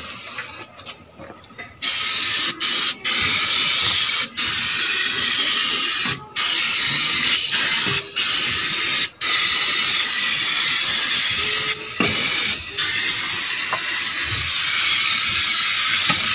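Aerosol cleaner spraying from a can, starting about two seconds in and going on in long hissing bursts with several brief breaks between them.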